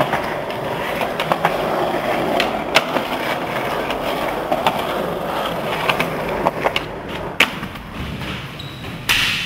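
Skateboard wheels rolling with a steady rumble, broken by repeated sharp clacks of the board hitting the ground. There is a louder crash of the board just before the end.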